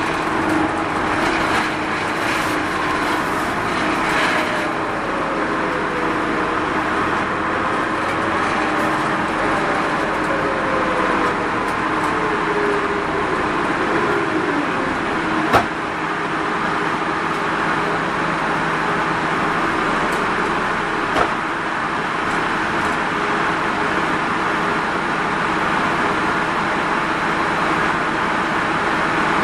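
Mitsubishi Fuso Rosa minibus running, its four-cylinder turbodiesel and road noise heard from inside the cabin, with tones rising and falling in pitch through the first half. Two short sharp knocks stand out, about halfway through and a few seconds later.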